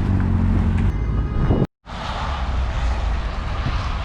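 Car engine running with a steady low drone, along with wind noise. The sound cuts out completely for a split second a bit under two seconds in, then returns with more hiss.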